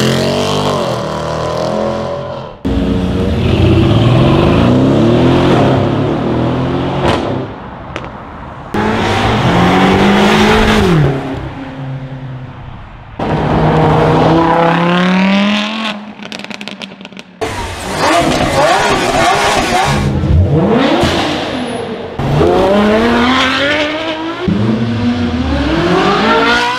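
High-performance car engines revving and accelerating hard, one car after another in short clips joined by abrupt cuts every few seconds. Within each clip the engine note climbs steeply in pitch.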